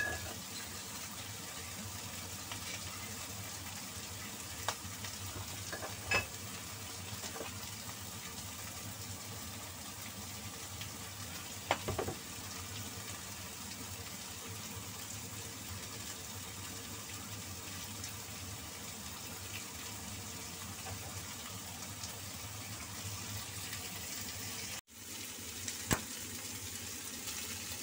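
Marinated meat slices sizzling steadily in hot oil in a nonstick frying pan, with a few light clicks along the way. The sound drops out for a moment near the end.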